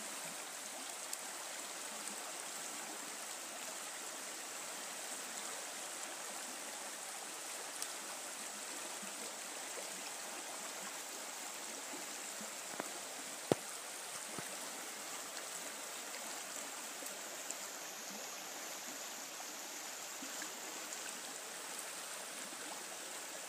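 Mattole River water flowing, a steady rush without a break, with a few faint ticks; the sharpest comes just past the middle.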